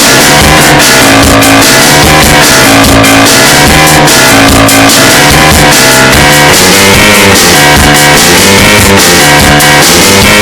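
Loud band music: drums and a driving bass line, with keyboard and brass parts on top, recorded very hot.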